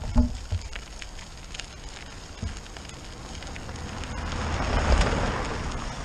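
A car driving past on a gravel track, its tyres crunching on the gravel, growing louder to pass close by about five seconds in and then fading, over a steady low wind rumble on the microphone.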